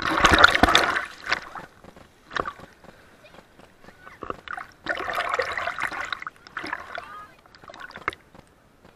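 Seawater splashing in two loud bursts, one at the start and one about five seconds in, with small splashes and drips between.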